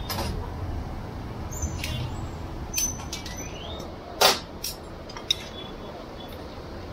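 About half a dozen short clinks and knocks of kitchen utensils, the loudest about four seconds in, over a steady low hum of street noise.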